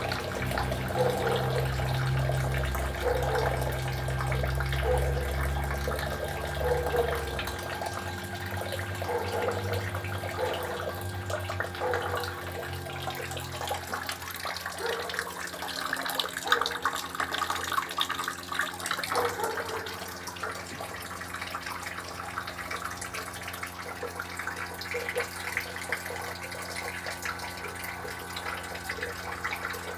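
Haier air conditioner in its defrost cycle: a steady trickling like running water, as meltwater runs off the iced coil. A low hum stops about seven seconds in, over faint steady tones.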